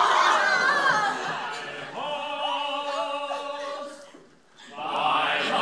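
A group of women's voices singing together, holding several long notes at once before stopping about four seconds in; a jumble of voices starts up again near the end.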